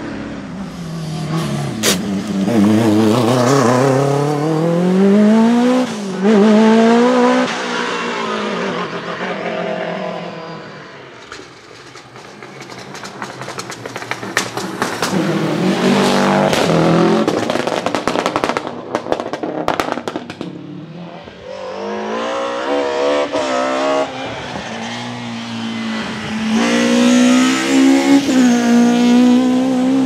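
Rally car engines at full throttle, among them a Porsche 911 and a Subaru Impreza, revving up and dropping back through gear changes as the cars pass one after another. There are brief lulls between cars, and the loudest pass comes near the end.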